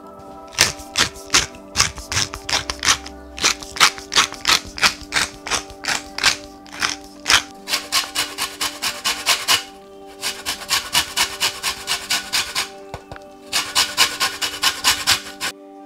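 A pepper mill grinding and a lemon being zested over raw pork chops, in several runs of quick rasping strokes, about four a second, with short pauses between runs, over soft background music.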